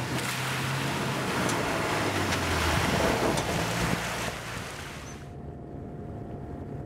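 Off-road jeep's engine running as it drives through a shallow river, with water splashing and rushing. About five seconds in this drops away to a quieter steady low hum.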